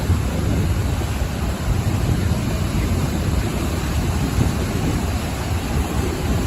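Ocean surf washing onto the shore: a continuous low rumble and hiss with no single wave crash standing out.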